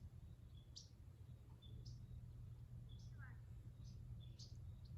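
A bird faintly repeating a short high chirp, a brief note followed by a quick upward sweep, about once a second over a low steady background rumble.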